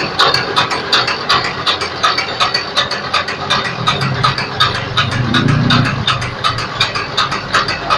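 Meatball forming machine running, its mechanism clicking in a fast, even rhythm of several clicks a second.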